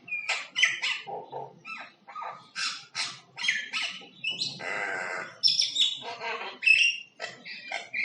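Common myna singing: a fast, continuous run of varied short notes, mixing clear whistles, clicks and harsh croaking calls, with a longer rasping note about halfway through.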